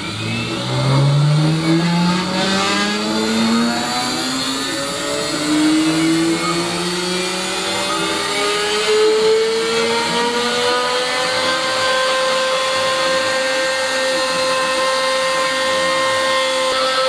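CNC router spindle motor spinning up: its whine climbs steadily in pitch over about the first ten seconds, then holds at a steady high speed.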